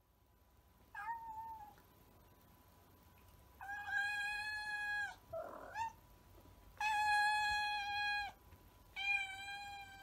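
Black Bombay cat meowing: four long, drawn-out meows of steady pitch, the first short. A brief rasping sound comes between the second and third.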